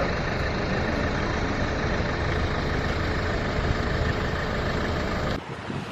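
A motor vehicle's engine running steadily with a low rumble, cutting off abruptly about five seconds in.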